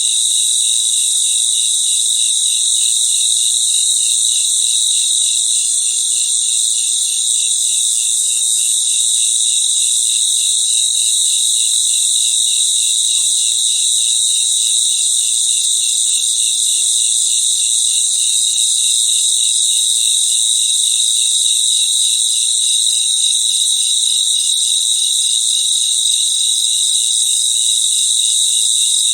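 Crickets chirping in a steady chorus: a continuous high trill, with a lower chirp pulsing evenly two to three times a second.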